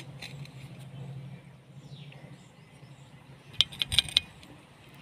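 A steady low hum, then a quick cluster of several sharp clicks about three and a half seconds in, with faint bird chirps.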